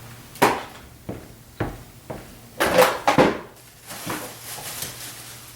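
A string of sharp knocks and clatters from small hard parts and tools of the deadbolt installation being handled and set down, the loudest cluster about three seconds in.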